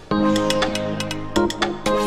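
Background electronic music with held synth chords and a steady beat.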